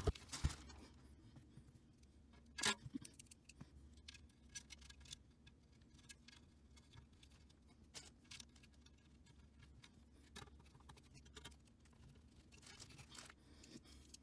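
Faint handling noises: scattered light clicks and knocks as hands press and adjust a liquid-cooler radiator in the PC case's metal cage, with one louder knock about two and a half seconds in.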